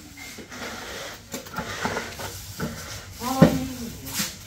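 Scattered knocks and clinks of ceramic tiles being set down and pressed into a wet mortar bed. About three and a half seconds in, a short vocal call rises and falls, and it is the loudest sound.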